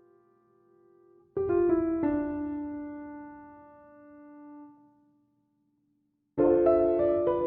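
Soft piano music: a few notes struck in quick succession about one and a half seconds in ring and slowly fade to silence, then another chord comes in near the end.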